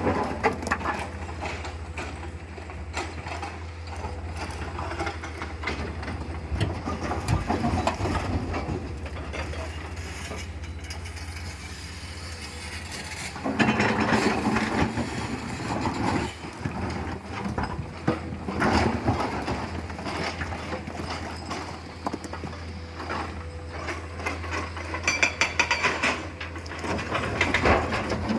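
Komatsu PC210LC-10 hydraulic excavator's diesel engine running with a steady low hum, joined by loud spells of rattling and clattering crushed stone (blue metal) being scooped and loaded, about halfway through, again a little later and near the end.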